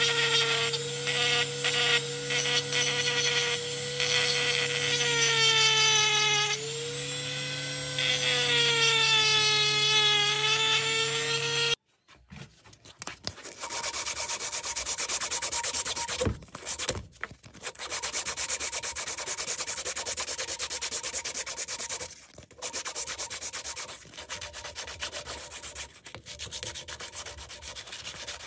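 Small hand-held rotary tool with a sanding drum whining steadily as it sands a wooden knife handle, its pitch wavering under load. About twelve seconds in it gives way to a strip of sandpaper rubbed back and forth across the wooden handle.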